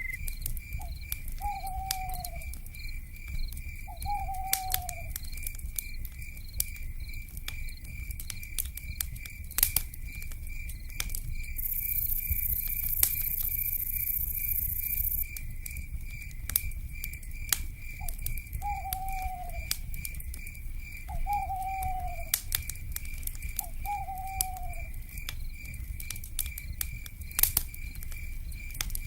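Wood fire crackling with sharp pops over a low rumble, and a cricket-like insect chirping in an even, steady pulse throughout. Five short downward-sliding owl calls, two near the start and three in the second half, and a brief high insect buzz about 12 seconds in.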